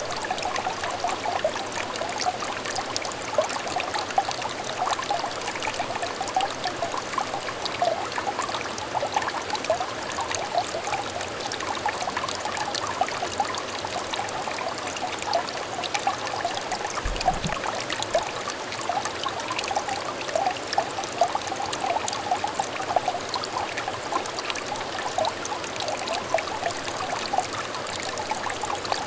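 A small clear stream trickling and burbling steadily, with a dense patter of small water splashes.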